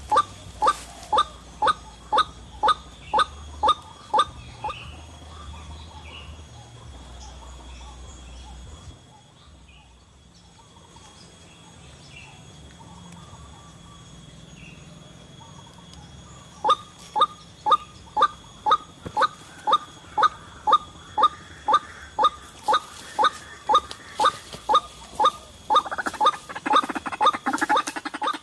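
White-breasted waterhen (ruak-ruak) calling: a run of short, sharp, falling calls at about two a second. The calls stop after about four seconds and resume a little past halfway. Near the end they break into a denser, rougher burst.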